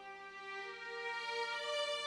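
Background music of slow, held notes, growing louder over the two seconds.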